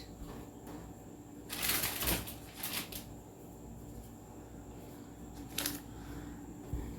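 Rustling and clattering of items being handled while a refrigerator is cleared out: a noisy rustle about one and a half seconds in, short clacks near three and six seconds, and a low thump near the end.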